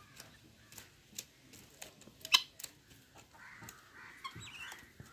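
Backyard chickens foraging in dry leaf litter: scattered sharp clicks and rustles, with one loud short downward-sweeping bird call a little past two seconds in and faint bird calls near the end.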